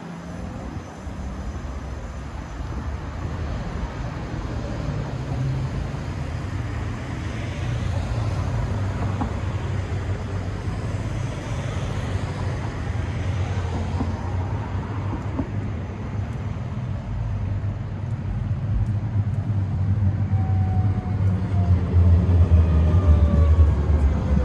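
Steady low rumble of passing vehicle traffic, growing louder near the end, with a faint falling whine as something goes by.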